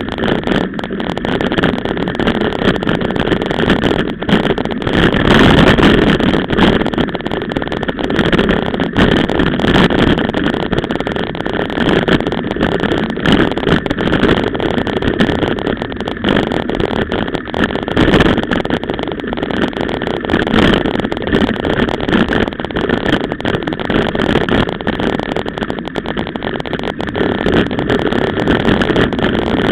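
Mountain bike ridden fast over a rough dirt track, heard from a camera on the bike: a loud, steady rumble of tyres and rushing air, broken by frequent knocks and rattles as the bike jolts over bumps.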